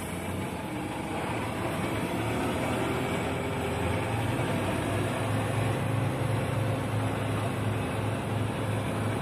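Truck engine running steadily while the truck moves slowly, heard from inside the cab, with a low, even hum.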